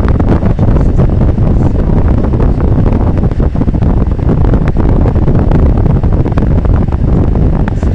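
Moving car with wind buffeting the microphone over road and engine noise: a loud, steady low rumble.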